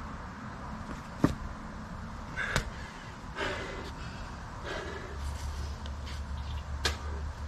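Hard breathing of a man recovering between burpee reps, in short puffs about a second apart, with a few sharp knocks against the asphalt. A low wind rumble on the microphone grows in the second half.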